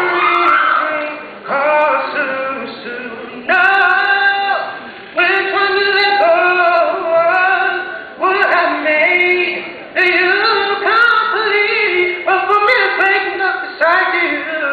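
A young man singing solo into a microphone through a sound system, in phrases with long held notes.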